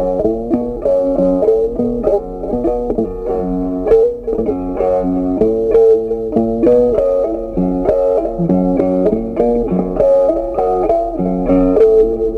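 Background music: a plucked guitar melody of quick, changing notes over a bass line.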